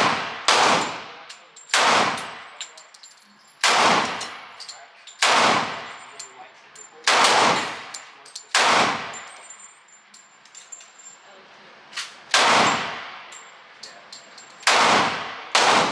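Glock 30S .45 ACP pistol fired one-handed, about nine single shots at an unhurried pace, with a longer gap around the middle, each crack followed by a short echo from the indoor range. The pistol cycles through the string without a jam.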